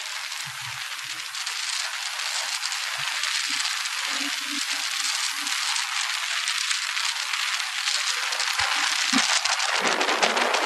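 Wind rushing over the microphone of a motorcycle riding at speed: an even, crackly hiss that grows slowly louder, with the engine hardly heard beneath it.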